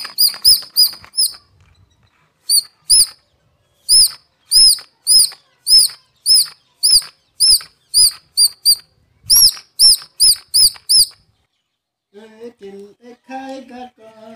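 Air-pumped toy horse squeaking as it is pumped along, a run of short high chirping squeaks two or three a second with brief pauses, stopping about eleven seconds in. A voice is heard faintly near the end.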